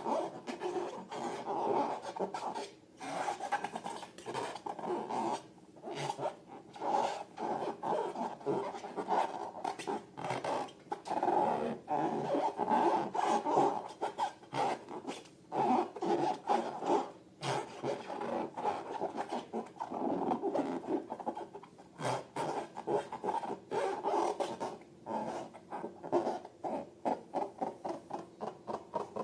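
Slime being worked by hand: irregular squelching, sticky rubbing and quick crackling pops that come and go in bursts.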